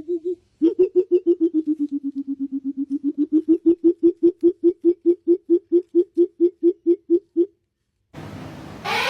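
A bird giving a long, rapid series of low hooting notes, about six a second at first, easing to about five a second, with the pitch dipping slightly and then rising back, after one short opening note; the series stops cleanly about seven and a half seconds in.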